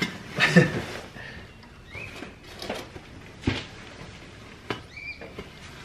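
Rustling of wheel packaging being pulled off and out of a cardboard box, with scattered handling clicks, a sharp knock about three and a half seconds in, and a couple of brief squeaks.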